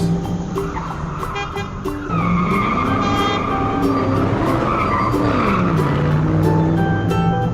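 Race car engine revving, its pitch sweeping up and down several times, with tyre skids over an upbeat music track.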